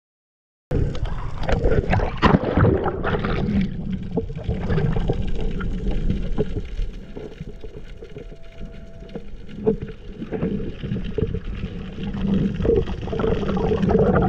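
Muffled underwater noise picked up by a camera during a freedive: a low water rush with scattered clicks and knocks. It starts suddenly about a second in, eases off in the middle and builds again near the end.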